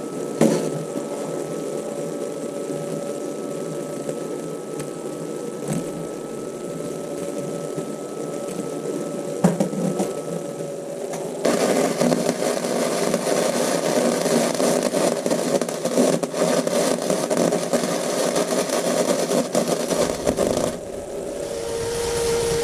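Yamaha XVS650's V-twin engine running. It gets louder and rougher about halfway through, and a rising tone like revving starts near the end.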